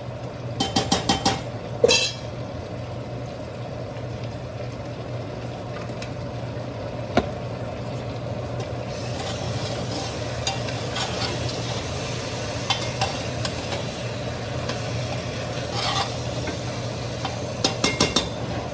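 Spiced mutton frying in a pot and being stirred: a sizzle under the stirring, with quick clusters of clinks against the pot about a second in and again near the end, over a steady low hum.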